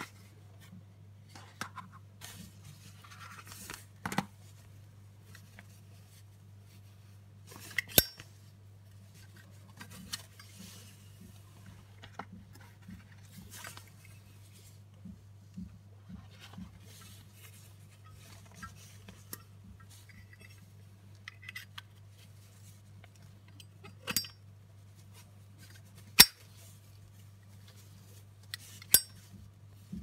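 Handling of a chrome Zippo lighter case and its arc-lighter insert: soft rustling and light taps, broken by several sharp metallic clicks and clinks, over a steady low hum.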